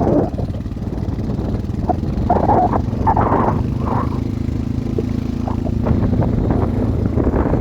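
ATV engine running steadily while riding. A few short, higher-pitched sounds stand out over it about two to four seconds in.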